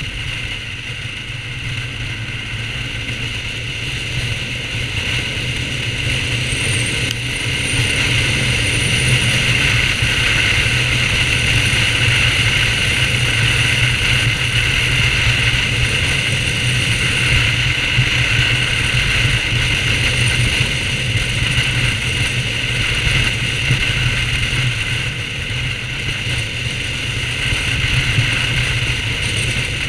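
BMW R1200GS motorcycle's flat-twin boxer engine running steadily under way, mixed with road and wind noise, getting louder about seven seconds in.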